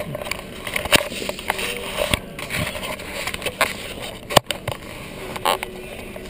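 Handling noise from a loose chest-mount camera mount being fiddled with: irregular clicks, knocks and scraping against the camera, the loudest knock a little over four seconds in.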